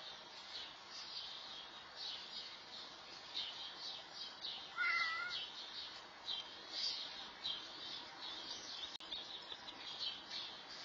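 An injured cat, thought to have been hit by a car, gives one short meow about five seconds in. Many short high chirps keep up throughout.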